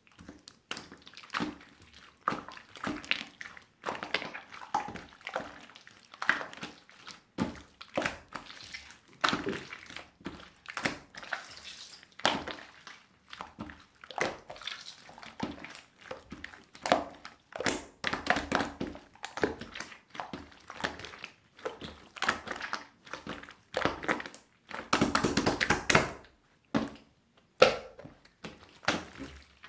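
Melted, runny opaque slime being squeezed and worked by hand, giving irregular wet, sticky squelches and pops, with a longer run of squishing near the end.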